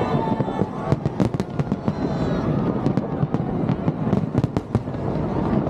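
Fireworks going off in many rapid, irregular pops and bangs, with the voices of the watching crowd beneath them.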